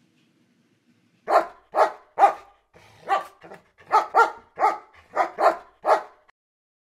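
Dogs barking: a string of about ten short barks, some in quick pairs, starting about a second in.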